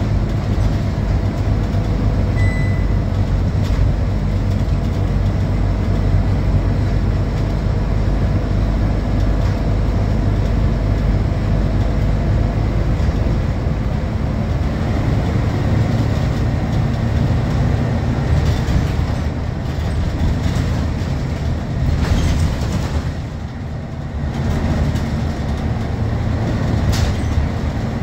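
Scania K230UB city bus under way, heard from inside the rear of the cabin: the rear-mounted five-cylinder diesel engine runs steadily over road and tyre noise, with light interior rattles. The engine sound eases off briefly near the end, then picks up again.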